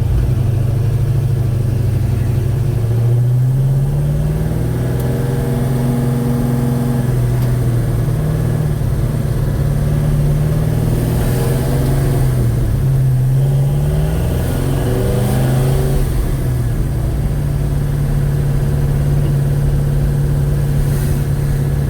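Chevrolet 307 small-block V8 in a 1956 Bel Air, heard while driving: engine speed rises and falls several times, then holds steady for the last several seconds. The valve train is very loud, running rough with a diesel-like clatter, later traced to mismatched valve springs and retainers.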